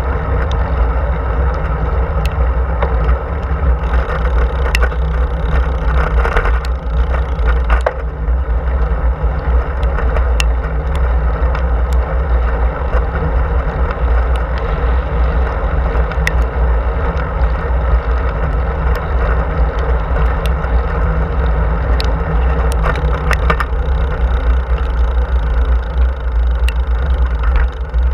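Riding noise from a road bike rolling along a paved path: a loud, steady low rumble of wind on the handlebar-mounted camera and tyres on the asphalt, with scattered small clicks and rattles.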